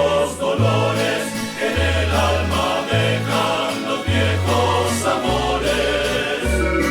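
Colombian string-ensemble music in a passage between sung verses: a bass line steps from note to note about once a second under a busy weave of plucked strings.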